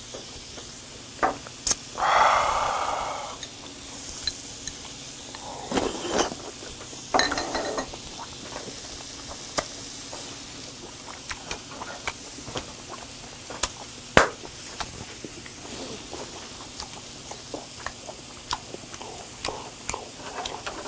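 Beef sizzling faintly on a small tabletop charcoal grill, with utensils clicking against dishes again and again. About two seconds in there is a louder breathy hiss lasting a second or so, and briefer ones come at around six and seven seconds.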